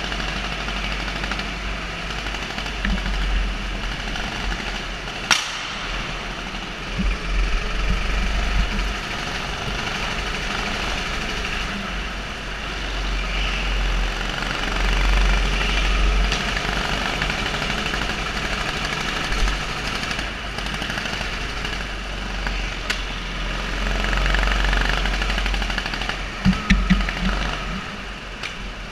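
Sodi rental go-kart engine running, its level rising and falling, with a few sharp knocks: one about five seconds in and a quick cluster near the end.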